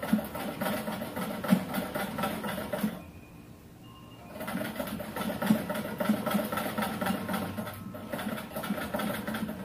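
Black Singer sewing machine stitching in quick, even runs. It stops about three seconds in, starts again about a second and a half later, and pauses briefly near the end.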